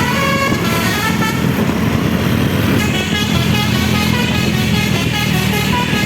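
Basuri telolet horn on a bus sounding its multi-tone tune, a stack of steady tones in the first second or so and again from about halfway, over the bus engine running.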